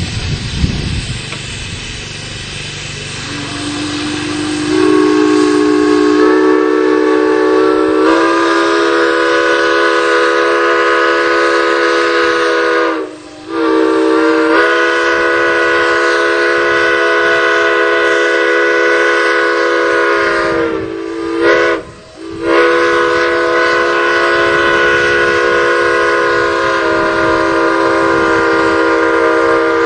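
A multi-chime railroad steam whistle blowing a long, loud chord. Its notes come in one after another over the first few seconds as it opens up, after a low rumble at the start. The whistle is shut off briefly twice, near the middle and again about two-thirds through, and then sounds on.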